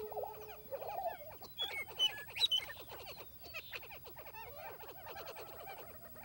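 Prairie-chickens calling on a lek: a dense chorus of rapid clucking and cackling notes, with a few higher clear whistled notes about two seconds in.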